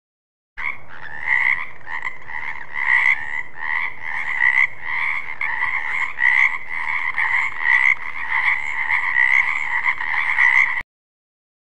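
Frogs croaking in a steady run of rapid, repeated calls, about two to three a second, starting just under a second in and cutting off abruptly near the end.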